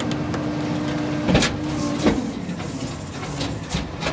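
Rear-loader garbage truck's hydraulic packer running with a steady hum as it crushes a couch, with two sharp cracks about a second and a half and two seconds in as the couch frame breaks; the hum then drops away.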